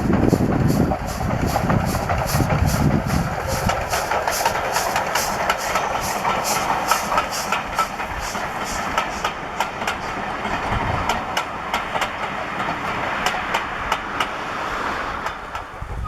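Steam-hauled train passing, with a heavy low rumble at first and then a quick, even beat that fades after about nine seconds into scattered clicks.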